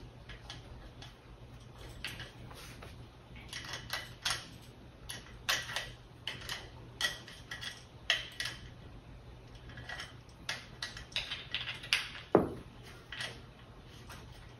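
Irregular small metallic clicks, taps and clinks of a caster wheel's screw being turned in by hand and the table's metal hardware knocking together, with one sharper knock near the end.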